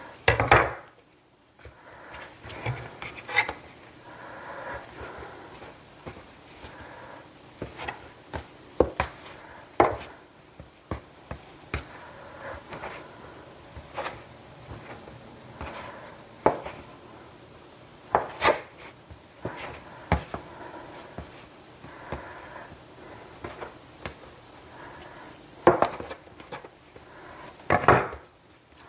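A bench scraper cutting pretzel dough into pieces, its edge knocking on a granite countertop in irregular sharp taps every second or two, with soft rubbing and handling of the dough between them.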